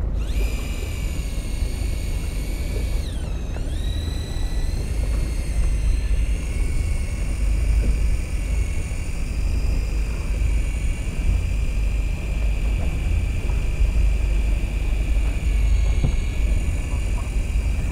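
Electric fishing reel's motor (Daiwa Seaborg 200J) whining steadily as it winds in line, its pitch dipping and recovering about three seconds in, over the steady low rumble of the boat's engine.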